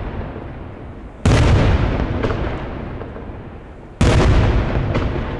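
Daytime aerial fireworks: two loud booms a little under three seconds apart, each a sudden bang followed by a long rolling echo that slowly dies away.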